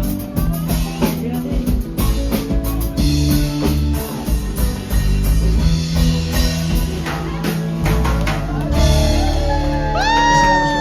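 Background music with a drum beat and guitar, with a high sliding, wavering call near the end.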